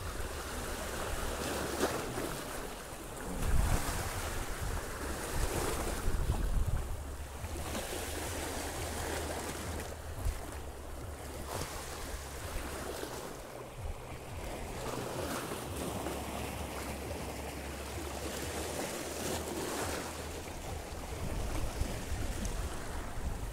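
Small sea waves washing and splashing over shore rocks, swelling and easing every few seconds, with wind rumbling on the microphone.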